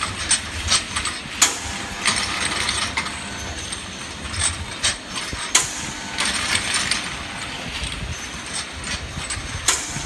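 Automatic syrup-bottle washing, filling and sealing machinery running: a steady mechanical hum with irregular sharp clacks from the mechanism.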